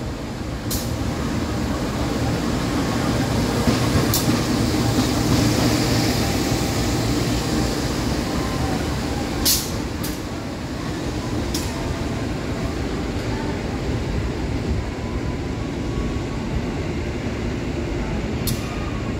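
CC 201 diesel-electric locomotive running light through a station: a steady engine rumble with wheels on the rails, loudest as it passes about four to six seconds in, then easing as it moves away. A few sharp clicks are heard along the way.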